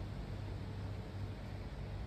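Steady background hum and hiss, strongest low down, with no distinct sounds standing out.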